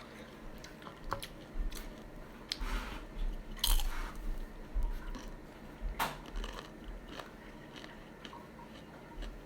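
Someone crunching and chewing chips: a string of irregular crisp crunches, thickest in the middle and thinning out near the end.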